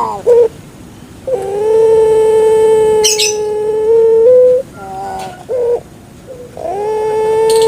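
Puter pelung dove (Streptopelia risoria) cooing: one long held deep 'kwok' note of about three seconds, a few short notes, then another long note swelling in near the end. A brief high chirp cuts in about three seconds in.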